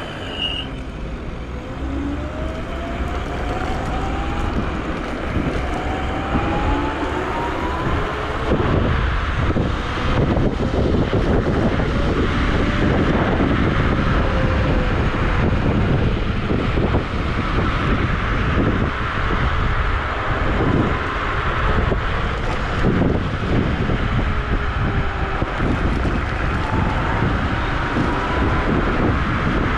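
Wolf Warrior electric scooter on the move: its dual electric motors whine, rising in pitch several times in the first eight seconds as it speeds up. Wind buffets the chest-mounted microphone and street tyres rumble on the road, growing louder and rougher from about eight seconds in.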